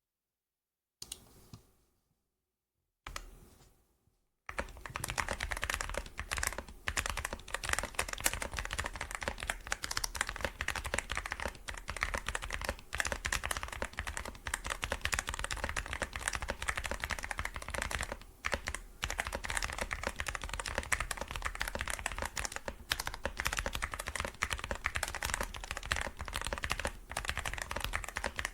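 YUNZII AL66 65% aluminium mechanical keyboard with lubed stabilizers being typed on quickly: a dense, continuous run of keystrokes with a thocky, poppy sound. It starts about four seconds in, after a couple of brief knocks.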